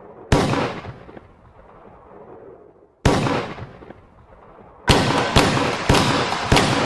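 Nerf Mega blaster firing foam darts, each shot a sharp crack with a long echoing tail: one near the start, another about three seconds in, then a quicker run of four shots about half a second apart.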